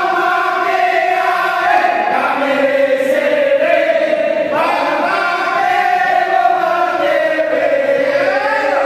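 A group of men singing a yel-yel cheer together in unison, a chanted team song with long held notes that step from one pitch to the next.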